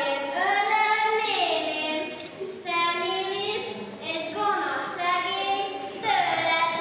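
A young girl singing solo in Hungarian, a melody of held notes that glide between pitches, with short breaths between phrases.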